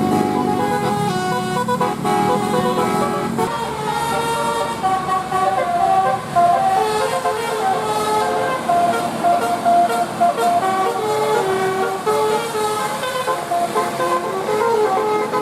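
Bus telolet basuri musical air horn playing a tune, a quick run of short horn notes stepping up and down in pitch.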